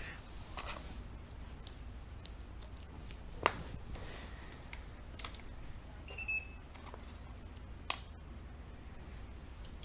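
Several sharp, light clicks of small RC parts being handled, and a short high-pitched electronic tone about six seconds in as the RC truck's steering servo is powered up to be centered.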